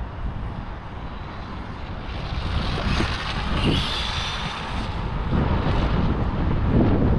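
Traxxas Bandit-based RC buggy with a 1/8-scale 2250 kV brushless motor on a 3S lipo, doing a speed run on concrete. A brief rising motor whine comes about three and a half seconds in, over a low rumble that grows louder.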